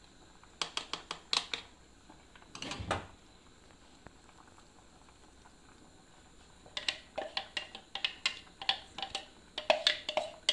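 Spatula scraping and tapping against the inside of a plastic food-processor bowl while thick pepper purée is scraped out, in quick clicking strokes: a short run of clicks, a duller knock about three seconds in, then a faster run of ticks over the last few seconds.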